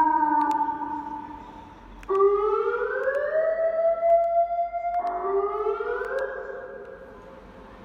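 Electronic vehicle siren, a 200 W siren-and-PA unit sounding through its horn speaker, playing the American-style wail tone. A tone rises slowly over about a second and a half and holds. About five seconds in it drops abruptly and rises again, then fades away. The tail of an earlier wail dies out at the start.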